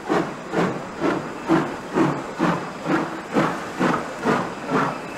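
Dutch NS 3700-class 4-6-0 steam locomotive No. 3737 moving slowly, its exhaust chuffing at an even beat of about two strokes a second.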